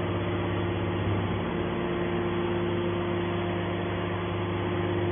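Hydraulic scrap metal baler's power unit, electric motor and pump, running with a steady hum while its lid cylinder swings the baler's cover open.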